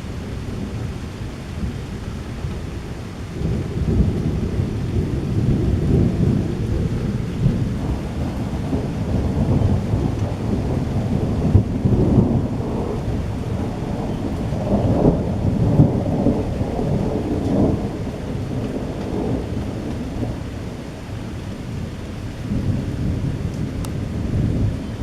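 Thunder rumbling in long, rolling peals from a strong thunderstorm, swelling a few seconds in and cresting twice in the middle, with steady rain beneath.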